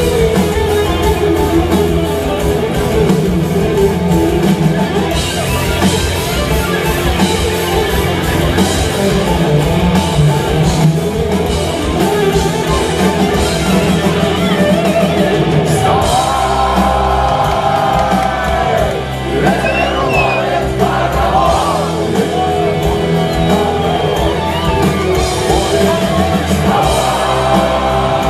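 Live rock band playing loudly in a club hall: electric guitars, bass and drums, with singing and shouts over the music.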